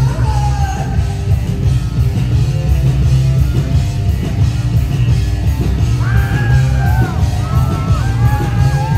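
A live rock band plays loud, with distorted electric guitars, bass and drums heavy in the low end. A woman's belted vocal comes in about six seconds in, with held and gliding notes.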